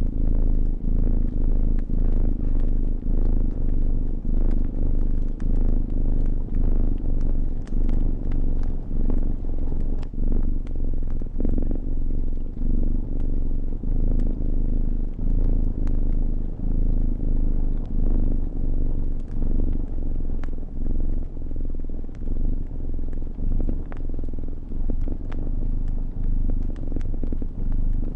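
A cat purring steadily, the low purr rising and falling with each breath about once a second. Faint scattered crackles of a fire sound over it.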